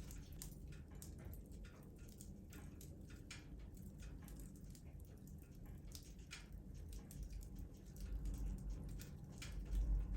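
Wood fire crackling in a fireplace: irregular small pops and snaps over a low rumble of the flames.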